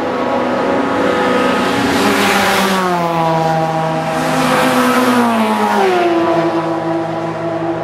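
Race cars passing at full speed, one about two and a half seconds in and another around five seconds, each engine note loudest as it goes by and then dropping in pitch. Engine sound carries on after them.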